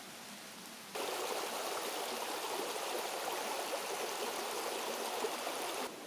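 Running water of a mountain stream, a steady dense splashing that cuts in abruptly about a second in and cuts off just before the end; before it, a quieter steady hiss.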